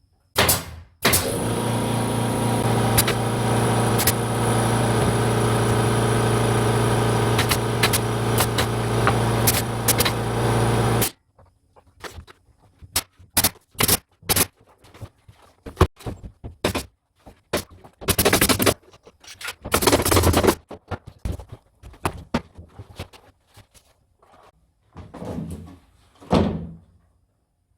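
An electric power tool's motor runs steadily for about ten seconds with a low hum and stops abruptly, followed by a string of sharp knocks and clacks and a few short noisy bursts of carpentry work on wood.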